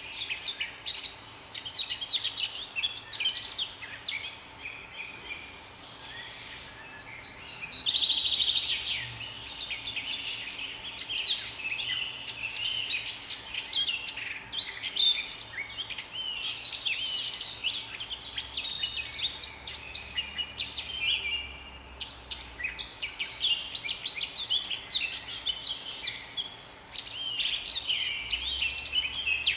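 A chorus of several songbirds chirping and singing, with many overlapping quick chirps and trills and a louder buzzy trill about eight seconds in.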